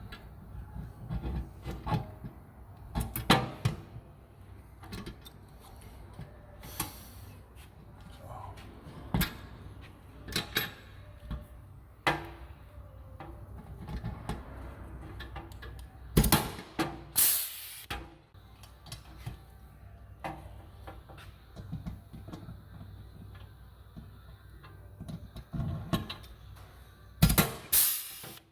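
Intermittent clicks, knocks and scrapes of hand work fitting a metal table-mount rail to a vehicle's side panel, with two louder rushing bursts, one about halfway through and one near the end.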